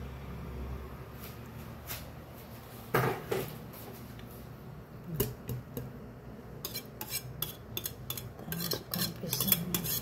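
Metal wire whisk scraping mashed banana off a ceramic plate into a ceramic bowl, clinking and tapping against the crockery. There is a louder knock about three seconds in, and a quick run of clinks in the last third.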